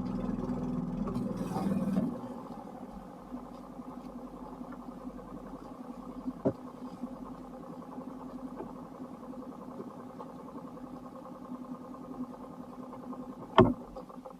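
An engine running steadily with a low even hum, louder for the first two seconds and then quieter. A single knock comes about halfway, and a sharp, loud click near the end.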